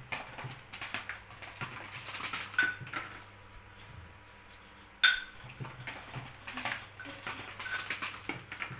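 Small plastic balls clattering down a homemade run of clear plastic cups, tapping and rattling against the cups and dropping into a plastic basket. Two runs of quick clicks and pings, the sharpest hit about five seconds in.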